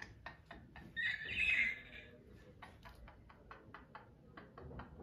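A short breathy, wheezing laugh about a second in, then a run of quick light clicks on a laptop keyboard.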